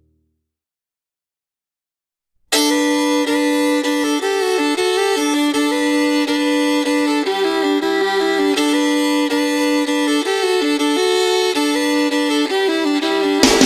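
Background music: silence for about two and a half seconds, then a country instrumental starts suddenly, with a fiddle carrying the melody.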